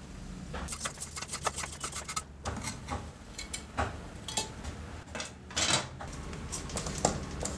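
Metal clinking and clicking as a coiled steel spring is pried out of an old circular saw's metal housing with pliers, with a quick run of small clicks about a second in and a brief scrape just before six seconds in.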